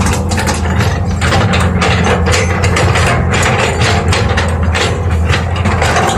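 Excavator's engine running steadily under a rapid, irregular clatter of metallic clicks and clanks.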